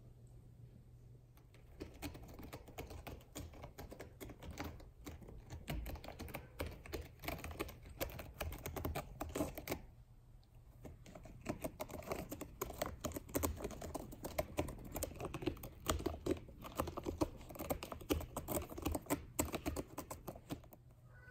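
A ragdoll kitten working at a corrugated cardboard cat scratcher, giving rapid scratchy clicking and rasping in two long runs with a short pause about ten seconds in.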